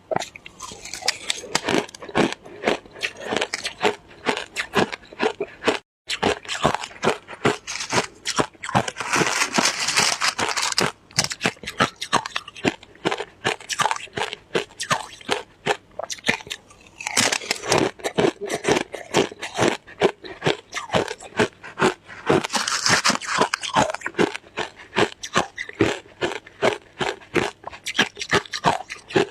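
Someone chewing and crunching shaved ice close to the microphone, with rapid, crisp crunches one after another, a few louder stretches, and a brief break about six seconds in.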